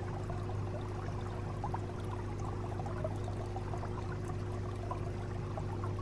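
Aquarium filter running: a steady trickle of splashing water over a low, even hum.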